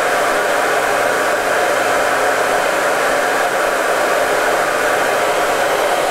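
1900-watt hair dryer running steadily at maximum power on its hottest setting, drawing about 1,520 W.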